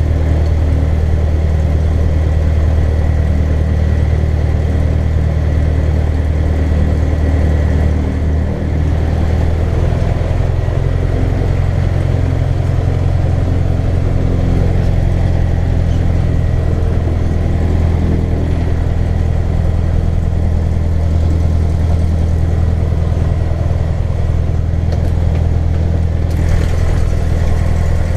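Cessna 150L's four-cylinder Continental O-200 piston engine and propeller running steadily at low power, heard from inside the cockpit. Its pitch shifts slightly about ten seconds in.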